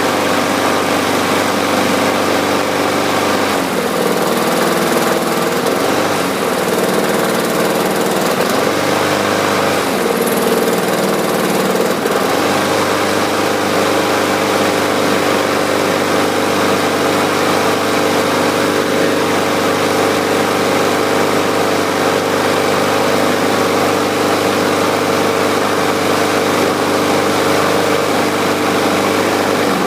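Briggs & Stratton single-cylinder lawn mower engine running. Its speed dips and recovers several times in the first dozen seconds, then it runs steadily.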